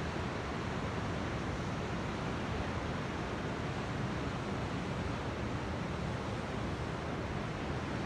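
Ocean surf washing on a beach: a steady, even rush with no single wave breaking out above the rest.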